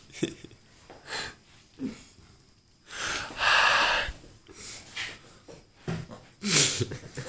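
A man making breathy, hissing mouth sounds in imitation of drums while air-drumming: a string of short puffs and snorts, with a loud cymbal-like hiss lasting under a second near the middle and another strong burst near the end.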